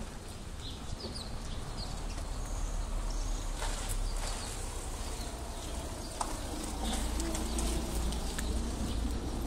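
Street ambience: a steady low rumble with short, faint bird chirps now and then.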